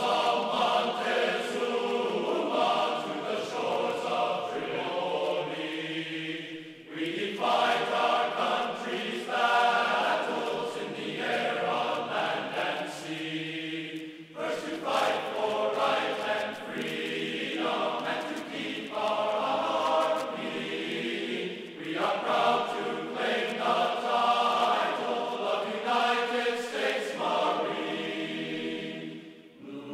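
Background choral music: a choir singing sustained chords in long phrases.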